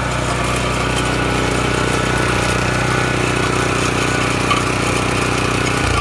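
Itallegna IGC70 wood chipper's 7 hp single-cylinder petrol engine running steadily at speed as a branch is fed into the hopper, with a single knock about four and a half seconds in. Near the end the engine note drops suddenly.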